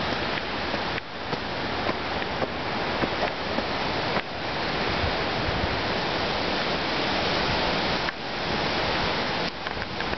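Strong hurricane wind blowing in a steady dense rush, dipping briefly about three times.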